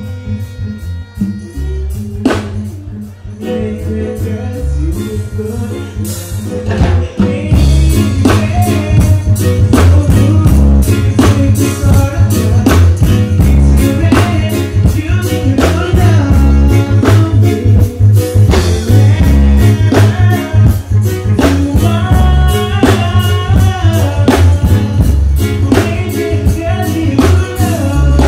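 Loud live music through a stage sound system: heavy bass, a steady drum beat and guitar, with a male singer's voice over it. The music fills out about seven seconds in.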